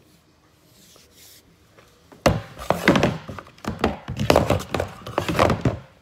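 Black rubber hose being handled and knocking against a pickup's metal toolbox: a quick, loud run of thunks and knocks starting about two seconds in and lasting about three and a half seconds.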